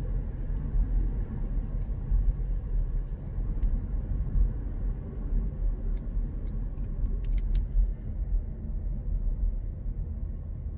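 Cabin noise of a Volkswagen T-Cross on the move at city speed: a steady low road and tyre rumble, with the engine running quietly at low revs. A few faint clicks sound about seven seconds in.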